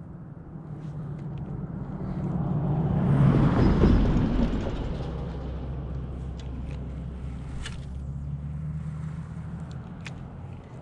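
A motor vehicle passing, likely crossing the road bridge overhead: engine and road noise build to their loudest about four seconds in, then fade slowly.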